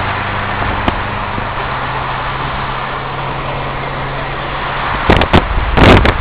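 Car engine running with a steady low hum; about five seconds in, loud irregular gusts of wind buffeting the microphone break in.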